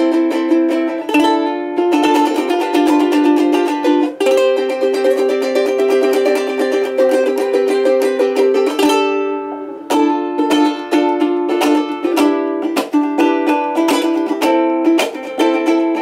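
Strummed chords on a G-Labo thin-bodied (Usulele) soprano ukulele built of AAA acacia, with a full middle-and-low range that the player credits to the AAA acacia. About nine seconds in, one chord is left to ring and fade for about a second, then the strumming picks up again.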